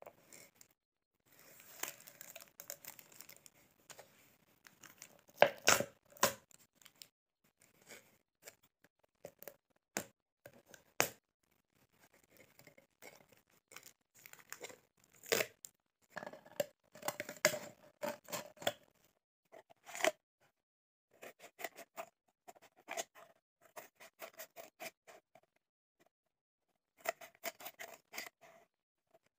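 Scissors snipping through a thin mini plastic soft-drink bottle in irregular runs of cuts, the plastic crackling as it is cut and handled; the loudest cuts come about six seconds in.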